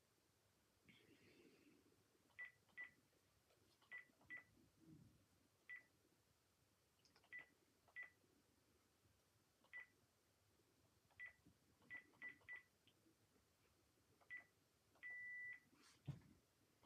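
Keypad beeps from a Panasonic KX-PRW120 cordless phone handset as its buttons are pressed to step through the menus: about a dozen short single-pitch beeps at an uneven pace, with one longer beep near the end.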